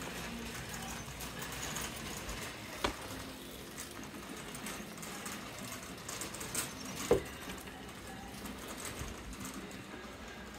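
Shopping cart rolling steadily over a concrete store floor, with two sharp knocks, a small one about three seconds in and a louder one about seven seconds in.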